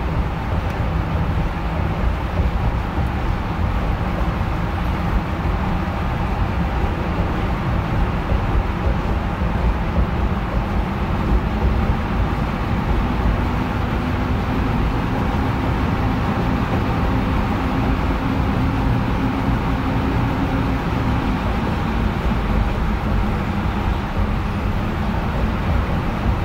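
Steady road and engine noise heard from inside a car driving through a road tunnel, mostly a low tyre rumble. A faint low steady hum joins about halfway through.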